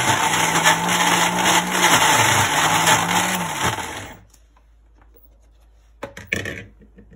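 Preethi Zodiac mixer grinder running hard, grinding soaked urad dal with salt, green chillies and curry leaves into vada batter; its motor hum wavers in pitch as the load shifts, then cuts off about four seconds in when it is switched off. A brief clatter near the end as the lid comes off the steel jar.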